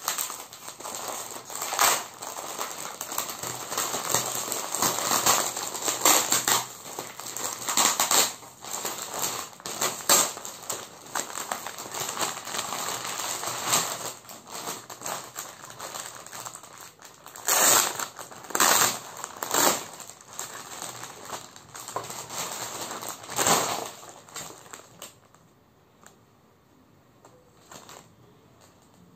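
Clear plastic clothing packaging crinkling and crackling as a folded garment is unwrapped and pulled out by hand. The crackles are sharpest about two-thirds of the way through, then die away near the end.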